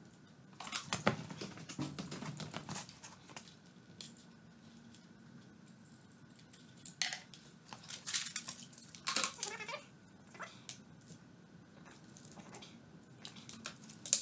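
Handling noises: rustling of a plastic bag of small parts and clicks of tools being picked up, in clusters about a second in and again around eight to nine seconds in, over a faint steady hum.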